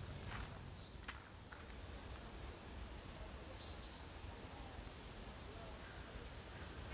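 Insects trilling steadily at one high pitch, with a few footsteps in the first second and a half.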